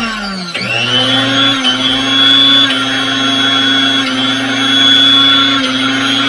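Bajaj 600-watt mixer grinder's universal motor running at high speed with a steady high whine, on a test run after its burnt field coil was rewound. About half a second in it slows briefly, then runs back up to full speed and holds there.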